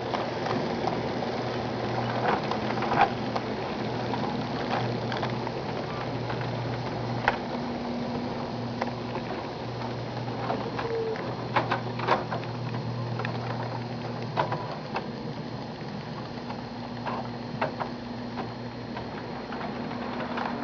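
HO-scale model locomotives running on the track: a steady small-electric-motor hum with scattered sharp clicks of the wheels on the rails.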